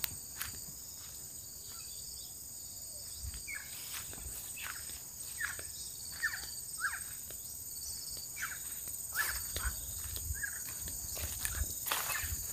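A series of short, high, squeaky calls, each sliding downward in pitch, repeating roughly every second from a few seconds in, over a steady high insect hum. The calls are taken to be from monkeys, likely young ones.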